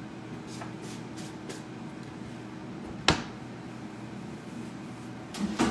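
Basket air fryer running with a steady fan hum. A single sharp click about three seconds in and a few quick knocks near the end, from handling at the counter.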